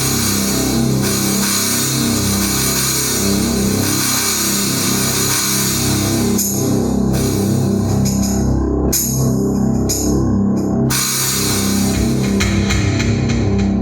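Electronic keyboard playing a rock-style rhythm pattern with drum kit, cymbals and guitar-like voices. The cymbals drop out in short breaks around the middle.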